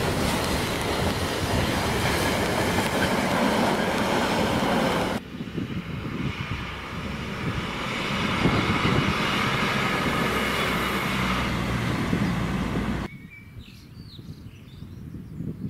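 Empty container flat wagons rumbling and clattering past on the rails. About five seconds in, this cuts to a two-car Class 158 diesel multiple unit running past. About thirteen seconds in, it cuts again to a much quieter low diesel rumble from an approaching Freightliner Class 66 locomotive, with birdsong.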